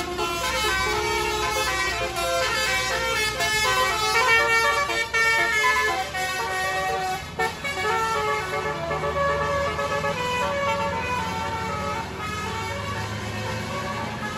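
Basuri telolet musical horn on a tour bus playing a fast tune of short stepped notes, over the running bus engine. The tune is strongest in the first half and fades, leaving the engine's low rumble more prominent near the end.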